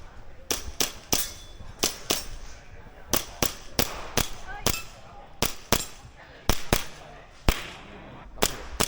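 Airsoft pistol firing a string of sharp pops, many in quick pairs about a third of a second apart: a shooter engaging targets during an IPSC course of fire.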